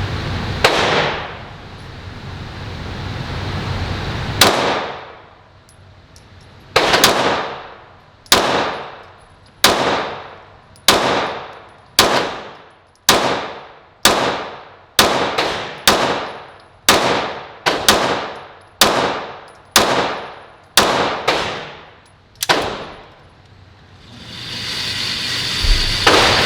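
A string of handgun shots fired one at a time, mostly about a second apart with a few quicker follow-ups in the middle, each shot ringing out in the echo of an enclosed indoor range.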